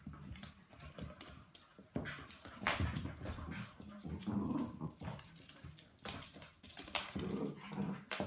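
Three dogs, a Westie, a Labradoodle and a fox red Labrador puppy, play-fighting: low growls and whines over scuffling, with sharp clicks and knocks of paws on a hardwood floor.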